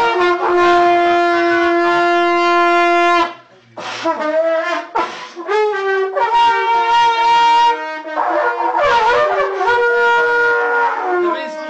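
A long wind instrument with a flared metal bell, blown loudly in held, reedy notes that step between a few pitches. There is a short break about three seconds in, then a run of shorter notes and more long held tones.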